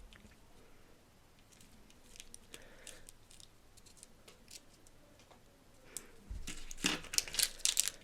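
Small wrapped candies and their packaging being handled: faint scattered ticks and rustling, then a louder run of clicks and crinkling in the last two seconds.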